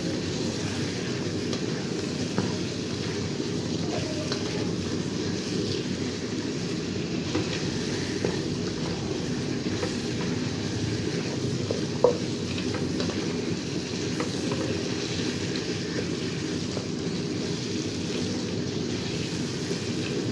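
Chicken pieces and spice masala sizzling in oil in a pan while a spatula stirs and scrapes them around, with a sharp knock about twelve seconds in. This is the bhuna stage, with the chicken frying in its spices.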